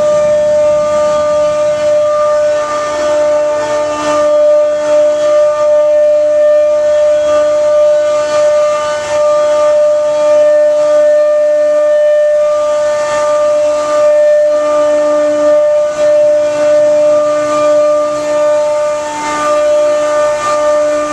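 Loud, continuous whine of job-site machinery held at one steady pitch, with fainter lower and higher tones fading in and out over it; a noise loud enough to need ear protection.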